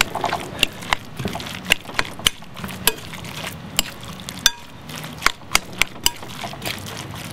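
Raw ground chicken and chopped vegetables being mixed by hand in a glass bowl, with irregular light clicks and taps against the glass, roughly two a second.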